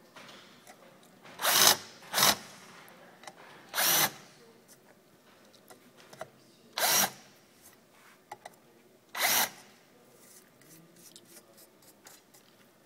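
Handheld power drill with a countersink bit briefly cutting into the metal roller ski shaft, five short bursts each under half a second, countersinking the binding screw holes.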